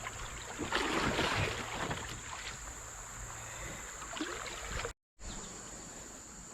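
Kayak paddle strokes splashing in river water, the loudest about a second in, over a low wind rumble on the microphone.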